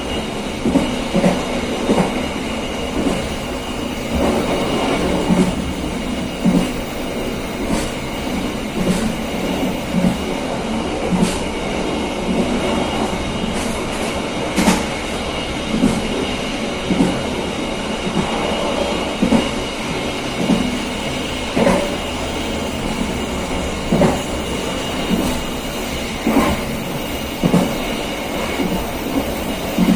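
KA Serayu passenger train running along the track, heard from the rear of the train: a steady rumble with sharp clacks of the wheels over rail joints roughly once a second.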